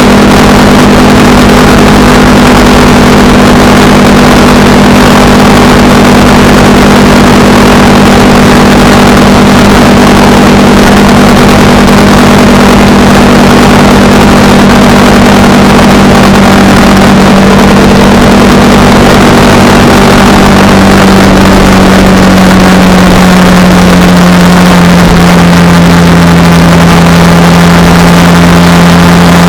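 Honda Rebel 300's single-cylinder engine running steadily at cruising speed under a constant rush of wind noise. The engine note drops slightly about two-thirds of the way through, as the bike eases off.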